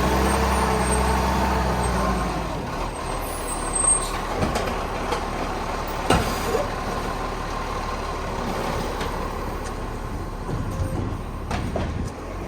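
Garbage truck working: its engine runs strongly for about two seconds and then settles. A few sharp mechanical knocks and clunks come over a steady noise.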